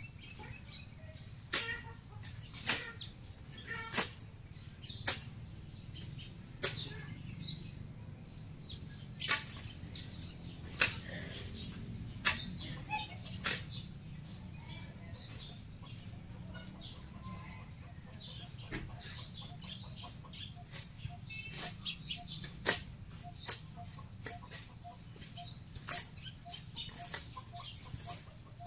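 Long curved cutting blade swung by hand through weeds and grass: irregular sharp swishes and chops as it strikes the stems, with gaps between strokes.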